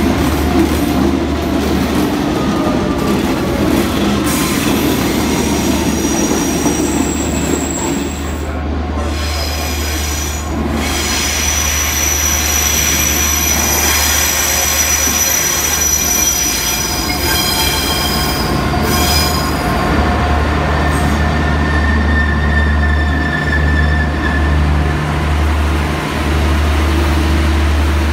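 Enterprise passenger train with a General Motors 201-class diesel locomotive moving through the station: a steady low diesel drone. High-pitched wheel squeal from the curved track rises over it from about four seconds in and fades out about nineteen seconds in.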